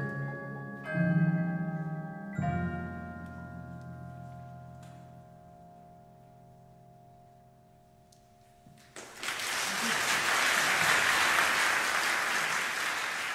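Percussion ensemble of marimbas, chimes and other mallet instruments striking its final chords twice, about one second and two and a half seconds in, the tones ringing and slowly fading for several seconds. Then the audience breaks into loud applause.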